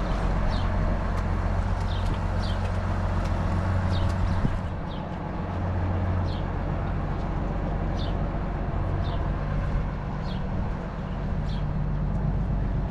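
Barn cleaner elevator running steadily over a manure spreader, a low mechanical hum with a short high squeak repeating about once a second.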